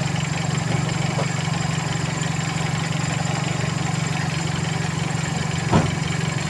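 Toyota 2E four-cylinder engine idling steadily, with one short knock near the end.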